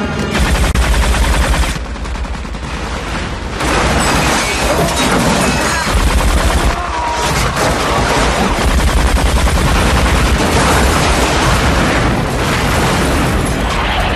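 Loud explosion and gunfire sound effects: a dense crackle of blasts over a deep rumble. It eases briefly about two seconds in and again around seven seconds.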